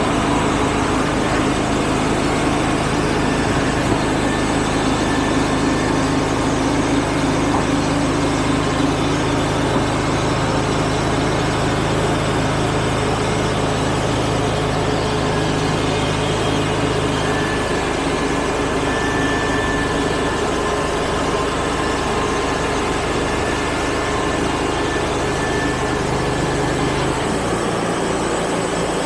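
Wood-Mizer portable band sawmill running steadily, its engine's hum constant, with a change in the low hum about two-thirds of the way through and again near the end.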